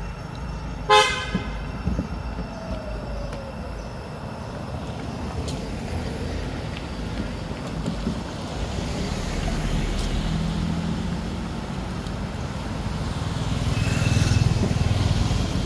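A short vehicle horn beep about a second in, over steady road traffic; engine noise from a passing motorbike grows louder near the end.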